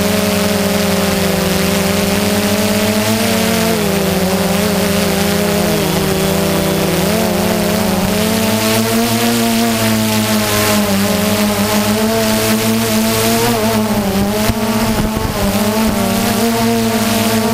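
Multirotor drone's motors and propellers whining steadily, the pitch rising and falling slightly as it hovers and drifts.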